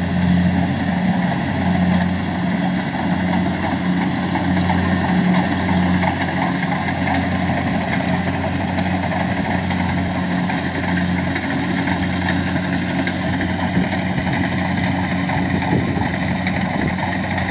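Rice combine harvester engine running steadily with a low, even hum that wavers slightly in level.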